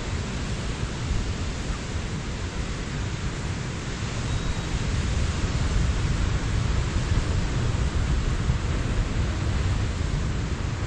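Steady noise of wind buffeting the microphone, a low rumble, over the wash of ocean surf breaking on the shore.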